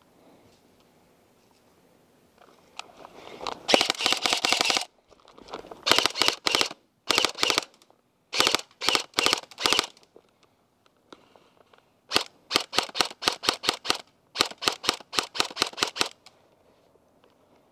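Airsoft guns firing in repeated bursts of rapid shots. A long string of evenly spaced shots, about five a second, comes near the end.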